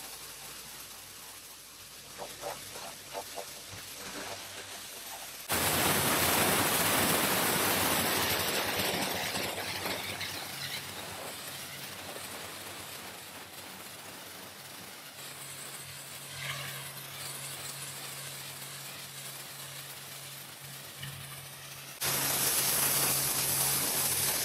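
Pressure washer lance jet blasting a grimy driveway: a steady hissing spray of water on the ground. It jumps suddenly much louder about five seconds in, eases off, and jumps loud again near the end. A low steady hum runs under the later part.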